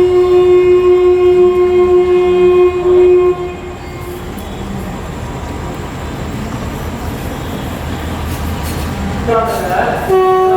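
Horn of a Sri Lanka Railways Class M6 (EMD G22M) diesel locomotive blowing one long steady note for a little over three seconds. The train's low rumble follows, and the horn sounds again about a second before the end.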